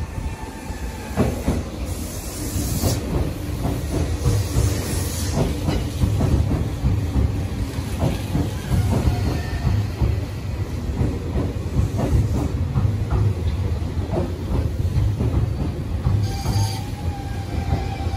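Tobu Railway 200-series limited-express electric train pulling slowly into a station platform: a low rumble with wheels clicking over rail joints and short bursts of air hiss. A brake squeal comes in near the end as it slows to a stop.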